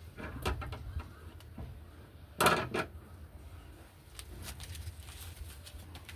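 Hard parts and tools being handled: scattered clicks and knocks, with one louder short clatter about two and a half seconds in, over a low steady hum.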